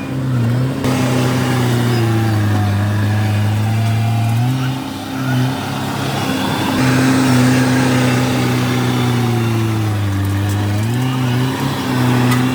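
Heavy diesel engine running under load, its drone sagging and recovering as the load changes, with a brief break around five seconds and a sharp rise in pitch about eleven seconds in.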